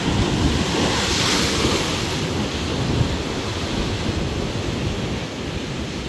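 Rough surf surging and breaking over shoreline rocks: a dense, continuous rush of churning water, slightly fuller in the first couple of seconds.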